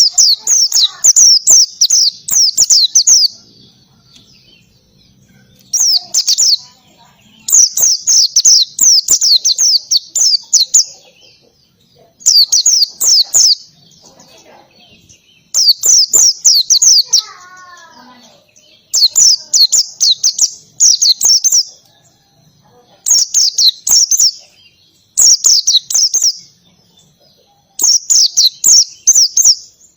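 White-eye (pleci) singing in loud bursts of fast, sharp repeated notes, canary-like 'tembakan' phrases. There are about nine bursts, each one to three seconds long, with short pauses between them.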